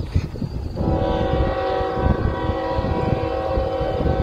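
Diesel locomotive air horn on an approaching Union Pacific freight train, sounding one long steady blast, a chord of several notes, starting about a second in. A low rumble runs underneath.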